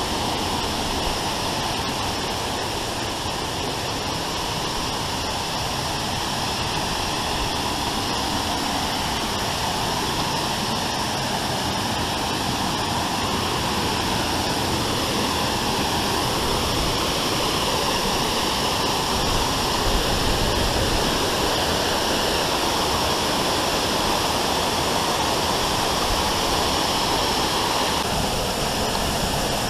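Waterfall: the steady, continuous noise of falling water, unchanging in level throughout.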